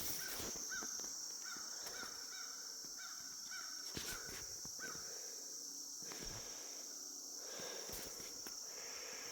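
Crows cawing in a quick run of short, evenly spaced calls over the first five seconds or so, above a steady high insect drone.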